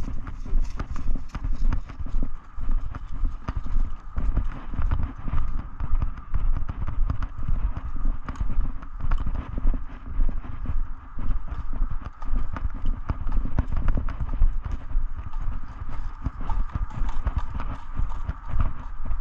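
Footsteps of a person walking: a continuous run of uneven, heavy thuds with lighter clicks mixed in.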